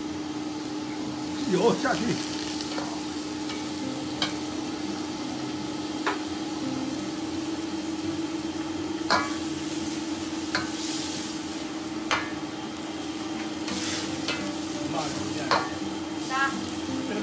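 Stir-frying in a wok over a gas flame: steady sizzling, with the metal spatula knocking and scraping against the wok every second or few seconds, over a steady low hum.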